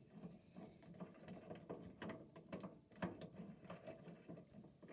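Faint, irregular light clicks and taps of metal parts being handled as the tool post is worked off the compound rest of a Grizzly G0769 mini lathe.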